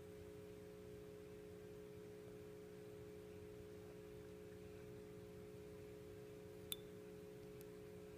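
Near silence: a faint steady electrical hum of a few low tones, with a single sharp click about two-thirds of the way through.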